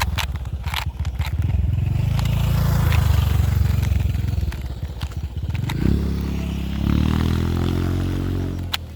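An engine running, rising in pitch twice in the second half as it revs up, with a few clicks near the start.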